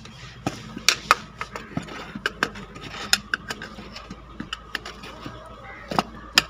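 Steel tyre levers clicking and knocking against a 70cc motorcycle's spoked wheel rim in irregular sharp strikes as the tyre is worked off the rim.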